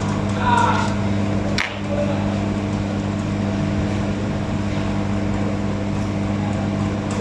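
Hot-air rework station blowing steadily, a whirring hum with air noise, as it heats a plastic component and its solder to reseat the part on a circuit board. A sharp click about one and a half seconds in.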